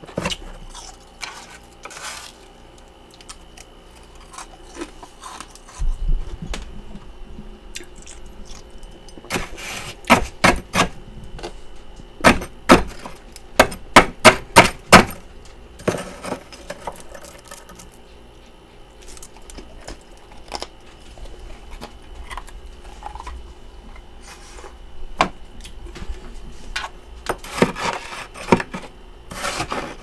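Metal spoon scraping and chipping at thick frost build-up inside a freezer. It gives scattered sharp scrapes and knocks, with a quick run of about a dozen loud strikes in the middle and another cluster near the end.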